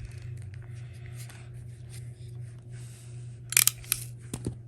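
Wire stripper of a Klein Tools modular crimper stripping the jacket off a Cat6 cable: faint rubbing and handling, then a quick cluster of sharp clicks from the tool about three and a half seconds in, with a few more near the end. A steady low hum runs underneath.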